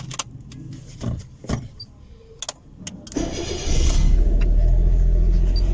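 A few clicks and knocks as the ignition key is handled, then about three seconds in the car's starter cranks briefly and the engine catches and settles into a steady idle.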